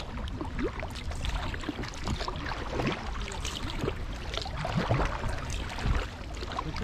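Kayak paddling on calm water: double-bladed paddles dipping and pulling, with irregular splashes and drips of water off the blades.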